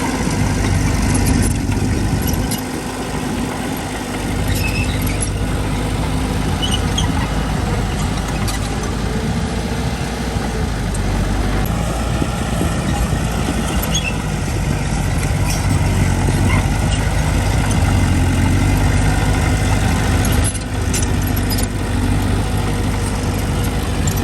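Diesel engine of heavy construction machinery running steadily under load, with scattered small clicks and knocks.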